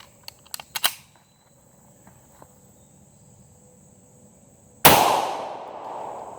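A few sharp clicks of pistol handling in the first second, then a single shot from a Hi-Point .45 ACP pistol about five seconds in, its report fading out over more than a second.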